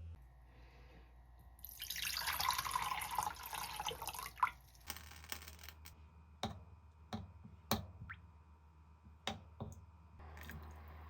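Kitchen tap running for about three seconds, then about five sharp clicks and knocks of things being handled.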